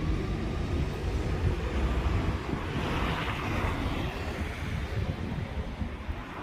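Street traffic: a steady low rumble of double-decker bus engines and road traffic, with a hissing swell about three seconds in.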